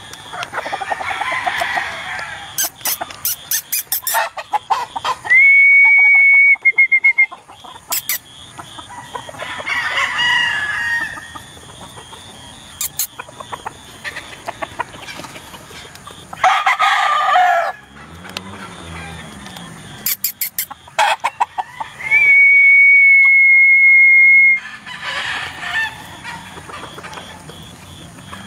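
Gamefowl roosters crowing again and again, with clucking from the pens. Twice a loud, steady high-pitched tone holds for about two seconds, and there are several bursts of sharp clicks.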